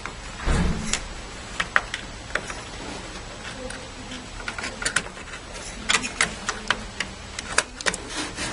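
Light plastic clicks and taps of a DDR memory module being handled and lined up in a desktop motherboard's RAM slot, with a low thump about half a second in and a faint steady hum underneath.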